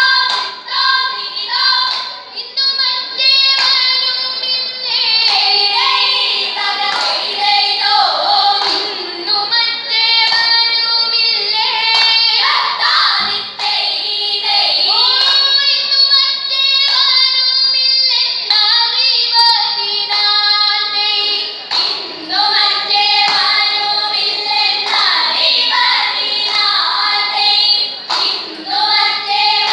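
A group of girls singing a vanchipattu, the Kerala boat song, together in chorus, with hand claps keeping the beat.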